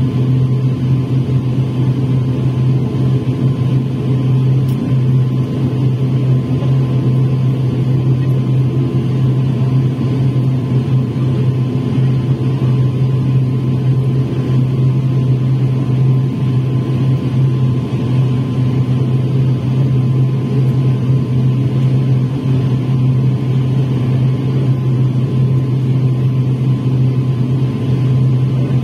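Steady drone of an ATR 72 turboprop's engines and propellers, heard inside the passenger cabin, running at an even, unchanging pitch while the aircraft waits on the runway before take-off.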